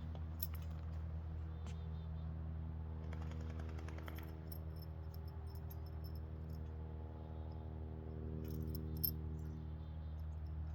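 Steady low hum with several even tones, with scattered light clicks and ticks about three seconds in and again near nine seconds.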